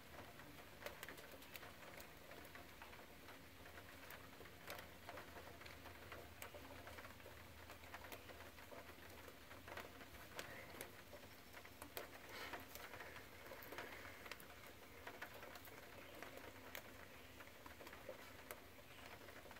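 Near silence, with faint scattered ticks and patters.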